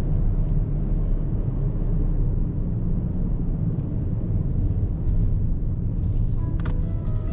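Steady low rumble of a 2022 Mazda3's engine and tyres while driving. Faint music comes in near the end.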